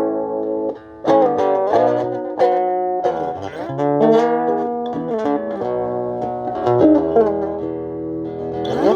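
Guitar played solo: a plucked melody of ringing notes, with several notes sliding or bending in pitch.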